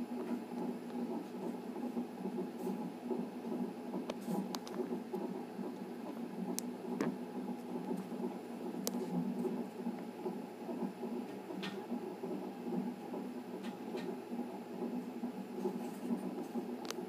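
Fetal heartbeat picked up by a Philips fetal monitor's Doppler ultrasound transducer and played through its speaker as a steady whooshing pulse, at a heart rate the monitor reads as about 145 beats a minute. A few faint clicks sound over it.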